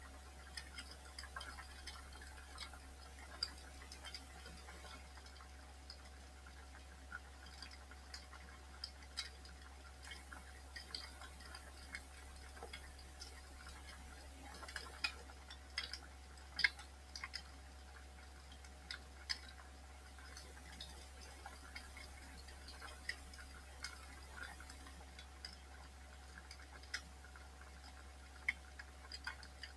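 Wood fire crackling in a fireplace: irregular snaps and pops of burning wood, a few louder than the rest, over a faint steady low hum.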